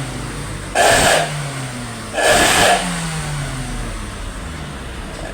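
Engine running through an aftermarket 'suos' exhaust, blipped twice, about a second in and again about two seconds in, the pitch sliding back down after each blip, then settling to a steady deep snoring idle.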